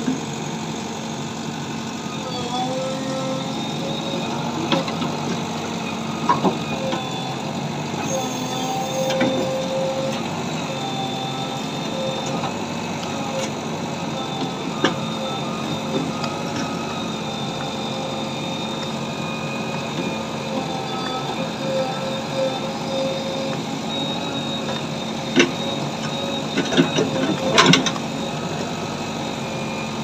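JCB 3DX backhoe loader's diesel engine running steadily, with a hydraulic whine that wavers in pitch as the backhoe arm is worked. A few short metal knocks, several of them close together near the end.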